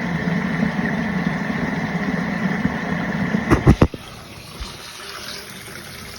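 Hot water running from a tap into a filling sink, a steady rush with a low hum. About three and a half seconds in come a few quick knocks, and the flow then goes on more quietly.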